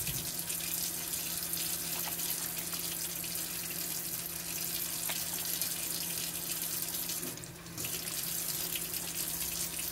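Kitchen faucet running steadily into the sink, with a brief drop in the flow sound about seven and a half seconds in.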